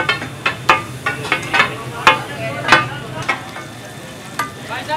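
Metal cleaver chopping roasted chicken on a flat iron tawa, each chop a sharp clang of steel on iron with a short ring, about two to three a second. Near the end the chopping thins out and the sizzle of chicken frying in oil on the hot tawa remains.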